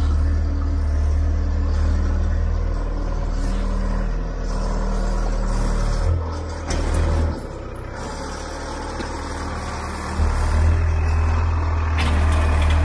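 Telehandler engine running while the machine manoeuvres. Its low drone falls away about six seconds in and picks up again around ten seconds in.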